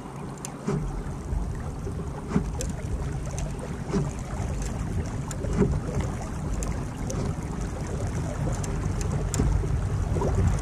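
Wind on the microphone and water lapping against a fishing kayak's hull, with light knocks or splashes about once a second.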